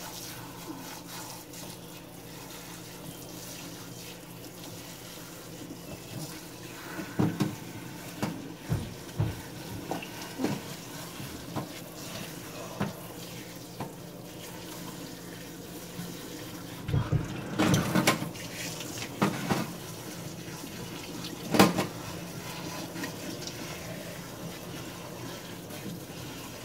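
Kitchen faucet pull-down sprayer running, water spraying through hair and splashing into a stainless steel sink as shampoo is rinsed out. Several knocks and bumps come through the middle, the sharpest a little past three-quarters of the way through.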